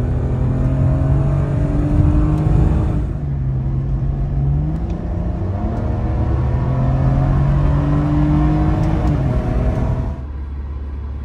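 BMW E46 inline-six engine pulling at wide open throttle, heard from inside the cabin: its pitch climbs, drops once about three seconds in, then climbs again. This is a full-throttle road test of the MAF airflow with a new air filter fitted. Near the end the engine eases off and gives way to a steady low hum.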